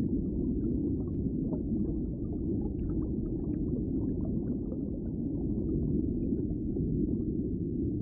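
Steady, muffled low rumble of underwater ambience, with faint scattered small ticks above it.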